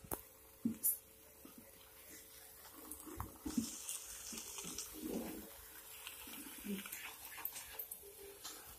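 Wooden spatula stirring egg and ridge gourd curry in a nonstick kadai: soft, irregular scrapes and knocks, with a brief hiss of frying from about three and a half to five seconds in.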